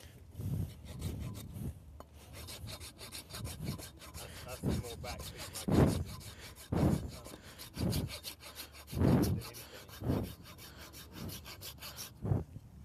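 A farrier's rasp stroked across a horse's hoof wall, a rough scraping in repeated strokes about one a second, taking down the crushed, curled outside wall of the hind foot.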